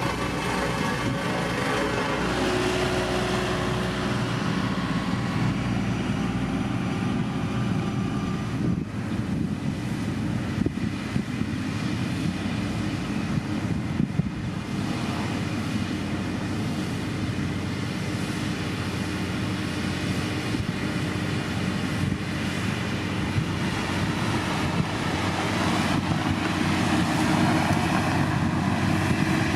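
Heavy road-construction machine's diesel engine running steadily at work.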